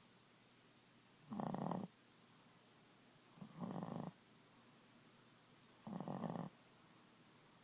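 Boston terrier snoring in its sleep: three snores about two and a half seconds apart, each lasting a little over half a second.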